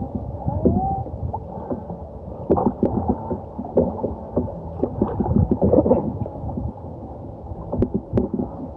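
Kayak on a river: water gurgling and sloshing against the hull, with irregular muffled knocks and a brief squeak near the start.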